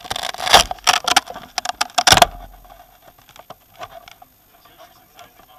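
Handling noise on a camera mounted on an RC buggy. There is a burst of loud rustling, clattering and knocks in the first two seconds or so as the car is moved and tilted, then only scattered light clicks.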